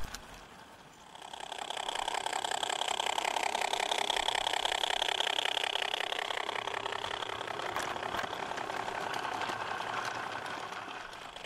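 Radio-controlled 16mm-scale model Fowler diesel locomotive and its train of skips running past close by: a fast, even mechanical chatter that builds about a second in and fades near the end.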